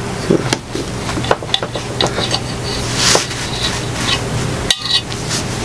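Light clicks and taps of a cup and tableware handled on a table, scattered irregularly over a steady low hum.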